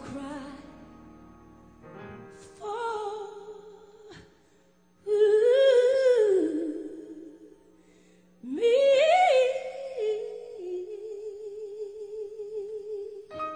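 Background music: a slow song with long wordless vocal notes with vibrato over a soft accompaniment. It swells loudly twice, about five and eight and a half seconds in, then settles into a held, wavering note.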